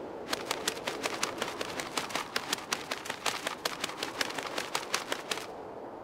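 A rapid, uneven run of sharp clicks, about six a second, lasting about five seconds and stopping suddenly, over a steady background hiss.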